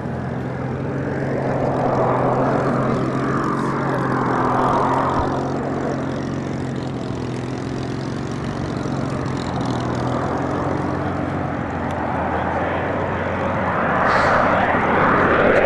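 Jet noise from a Eurofighter Typhoon's twin Eurojet EJ200 turbofans as the fighter flies its display. A continuous rushing roar with slow whooshing sweeps as it passes, swelling about two seconds in and growing louder again near the end as the jet comes closer.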